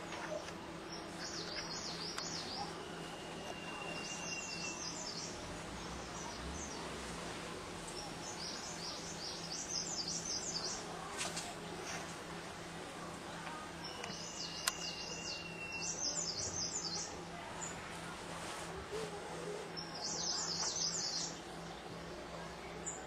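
Wild songbirds calling: short phrases of rapid, high twittering notes repeated every few seconds, and twice a thin, level whistle held for about two seconds.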